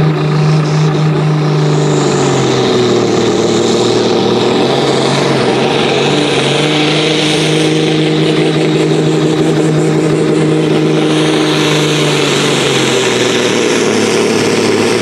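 A sport-class pulling tractor's diesel engine runs flat out under heavy load as it drags the weight sled: a loud, steady drone that holds its pitch and sags slightly near the end.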